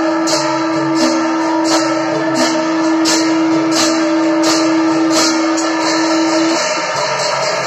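Devotional procession music: hand cymbals clashing about every 0.7 seconds over a steady drum beat, with a long, steady horn-like note held over them that cuts off near the end.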